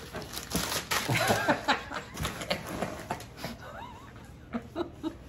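A man and a woman laughing and chuckling, with a few indistinct words mixed in; it dies down near the end.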